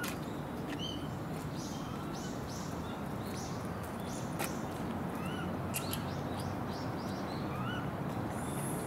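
Japanese macaques giving many short, high, arched coo calls, scattered through a steady background hiss.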